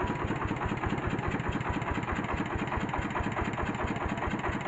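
Single-cylinder diesel engine of a mobile rice mill running steadily under load, its firing beat a rapid even thud, with the huller machinery whirring along as it drives the milling.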